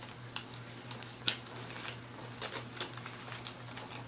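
Wrapping paper crinkling and tearing in small, irregular crackles as a child's fingers pick at a wrapped present.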